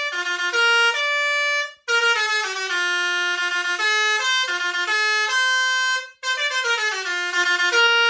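Multi-tone 'telolet' bus air horn playing a quick melody of stepped notes, broken by two short gaps about two and six seconds in.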